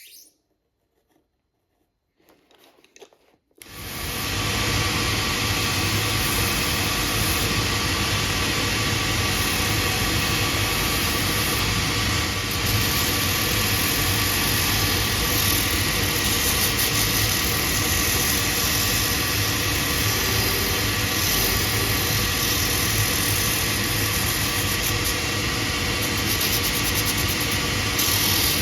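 An electric workshop machine starts up about three and a half seconds in and runs steadily with a low hum.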